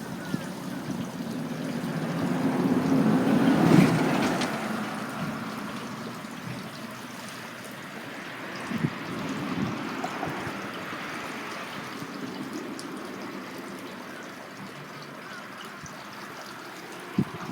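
Steady rush of water in a swollen, muddy channel, with a vehicle passing close by: its noise swells to a peak about four seconds in and then fades. A few short knocks stand out over the water, one near the end.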